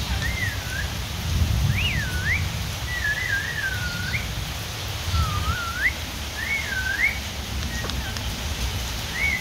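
Whistling: about six short phrases of clean notes gliding up and down, spaced a second or so apart, over a steady low rumble.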